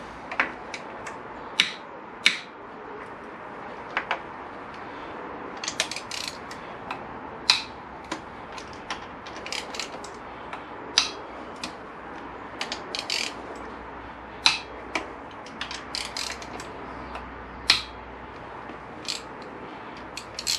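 Hand socket ratchet clicking in short runs, with an occasional sharper single click, as the camshaft bearing cover bolts on a Honda VFR800 VTEC cylinder head are loosened a little at a time.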